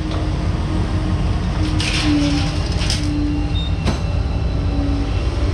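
A heavy vehicle running: a steady low rumble with a faint hum that comes and goes, and a sharp click about four seconds in.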